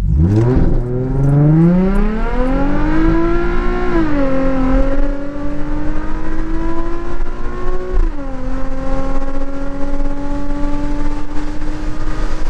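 2007 Nissan 350Z's 3.5-litre VQ35HR V6 accelerating hard from a launch, the engine note rising steeply then dropping at two upshifts about four and eight seconds in, climbing again after each. Wind rushes past steadily underneath.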